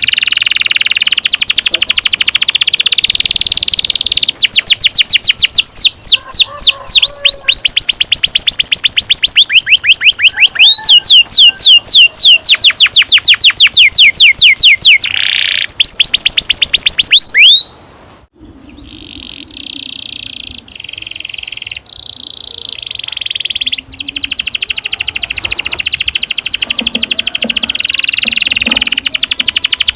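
Domestic canary singing long rolls: fast trills of quickly repeated sweeping notes, one run after another. A little past halfway it breaks off into a few quieter, choppier phrases, then the rolling song resumes.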